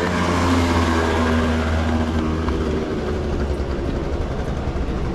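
Motor scooter engine running, a low steady hum that is strongest over the first few seconds and then fades.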